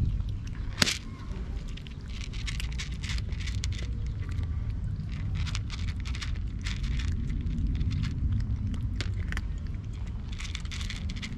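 A cat and a kitten crunching dry kibble: irregular crackly chewing clicks, with one sharper click just under a second in, over a steady low rumble.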